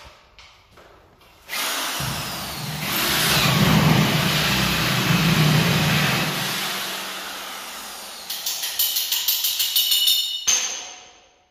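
Corded electric drill fitted with a hole-saw bit cutting a round downlight hole through a gypsum-board ceiling: the motor starts about a second and a half in, bogs into a deeper hum as the cutter bites, and eases off. Near the end it runs in a quick series of short pulses, then stops abruptly.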